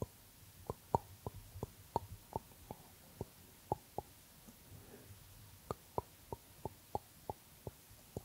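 Close-miked mouth sounds: soft clicks and lip pops right at the microphone, about three a second, pausing for a second or so midway.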